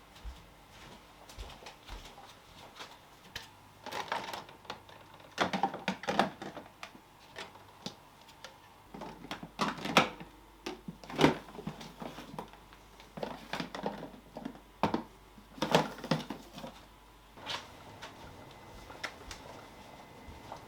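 Food containers and packaging being handled in a kitchen: short clicks, knocks and rustles in clusters about four, six, ten, eleven and sixteen seconds in, the sharpest knocks near ten and eleven seconds.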